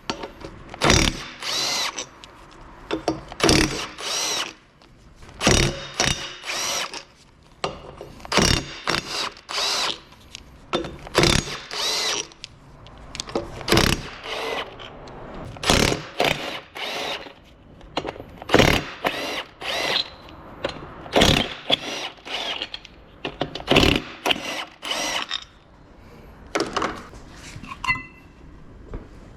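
Power tool, likely a wrench, run in short bursts one after another, often in pairs, loosening the wheel bolts to take the wheels off. The bursts carry a ringing whine and stop near the end.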